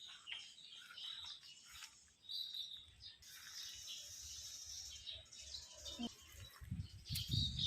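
Small birds chirping and tweeting in short calls, with a low rumble of wind on the microphone in the last second.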